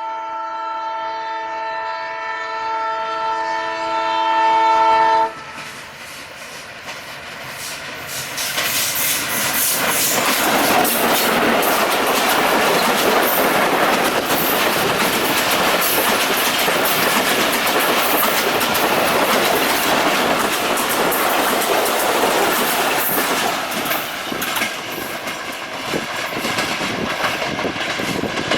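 ALCO WDM-2 diesel locomotive's horn sounding for about five seconds in several steady tones, then cutting off suddenly. The express train then passes at speed, its noise building to a loud rush with rapid clatter of wheels over rail joints, easing a little near the end.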